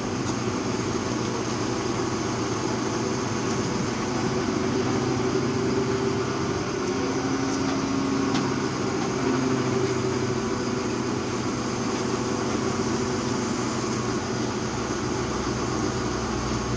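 Engine of a truck-mounted hydraulic loader crane running steadily to power the crane, a continuous mechanical hum; a higher tone joins it briefly about eight seconds in.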